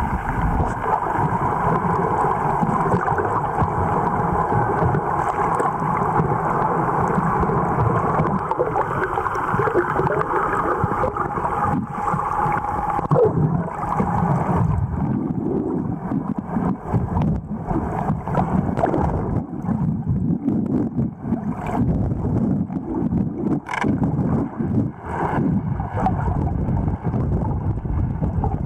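Underwater noise of moving water with the steady hum of a boat motor running in the water. About halfway through the hum fades, leaving uneven gurgling water noise and a few sharp clicks.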